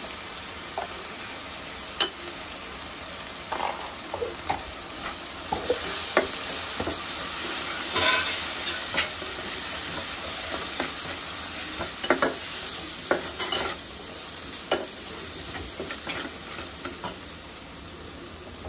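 Sliced onions and ground spices sizzling in hot oil in an aluminium pot: the masala being fried down (bhuna). A steel spatula scrapes and knocks against the pot as it stirs, giving scattered clicks over a steady hiss.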